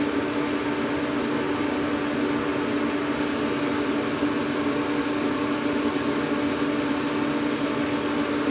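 Faint scraping strokes of a Gold Dollar 66 straight razor cutting through lathered stubble, over a steady mechanical hum with a strong low held tone.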